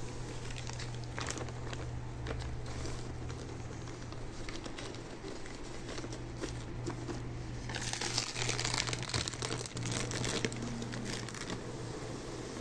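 Plastic film on top of a stingless-bee hive box being handled and peeled back, crinkling and crackling, loudest for a few seconds in the second half, over a steady low hum.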